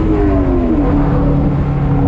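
2003 Chevrolet Corvette Z06's LS6 V8 running under way. Its engine note falls in pitch for under a second as the revs drop, then holds steady at a lower pitch.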